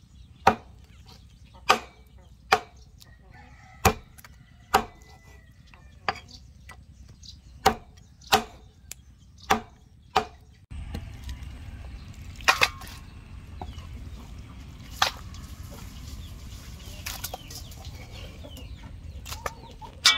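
Meat cleaver chopping raw duck on a wooden chopping board: about nine sharp chops at uneven intervals, roughly one a second. About halfway through, the chopping stops, and only a few lighter knocks follow over a louder, steady background.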